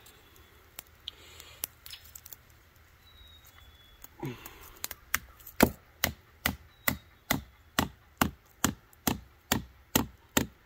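A hatchet hammering a sap spile into a birch trunk. A few light taps about four seconds in, then steady blows about two a second.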